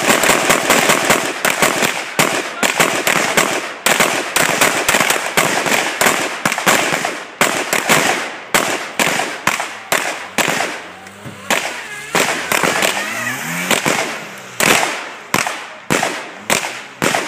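Rapid gunfire from several shooters with rifles and pistols, shots overlapping in a dense volley for the first half and then thinning to about two shots a second.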